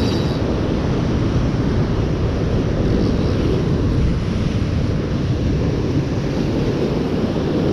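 Wind buffeting the microphone over surf breaking against lava rocks below, a loud, steady rush heaviest in the low end.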